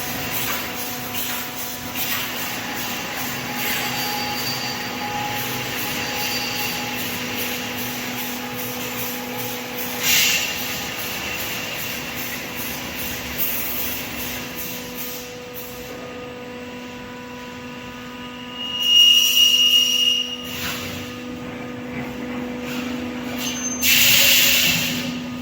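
Automatic 3D wire mesh panel welding machine running with a steady mechanical hum. Three louder, short bursts of hiss come through: about ten seconds in, around twenty seconds in, and near the end.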